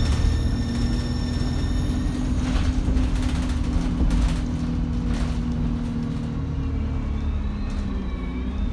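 A bus's diesel engine running steadily with its turbocharger whistling. The whistle fades in the first couple of seconds and comes back as a wavering whine near the end, with a couple of brief knocks or rattles in between.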